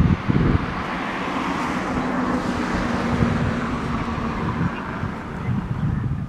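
A road vehicle passing, its tyre and road noise swelling and then fading, with wind rumbling on the microphone.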